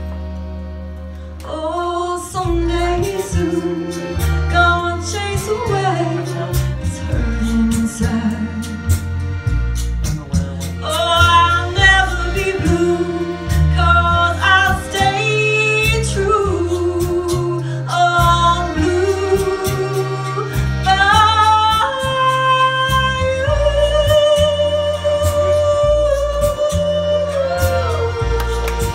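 Live small jazz band: a woman sings with vibrato over an upright bass playing a walking line of short low notes, with accordion and horns. The music dips briefly just before two seconds in, and the singer holds one long note near the end.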